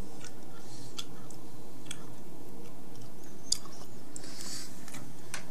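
Steady background noise with scattered faint clicks and small crackles, one slightly sharper click about three and a half seconds in.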